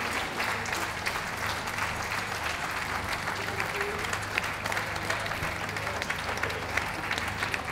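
Audience applauding steadily, a dense even patter of many hands clapping, for the winning dog's lap of honour.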